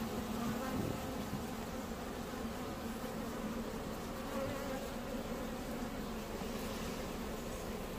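Asian honeybees (Apis cerana) buzzing over the frames of an open hive, a low, steady hum.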